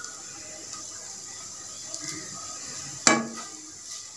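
Plastic spatula stirring and scraping egg-and-capsicum fry in a non-stick frying pan over faint sizzling, with one sharp knock of the spatula against the pan about three seconds in.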